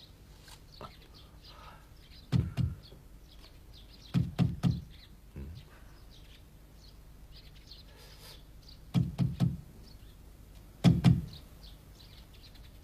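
Knuckles knocking on a wooden wall panel in short groups of two or three raps, a few seconds apart: sounding the wall for a hollow, which turns out to be a hidden wall cupboard.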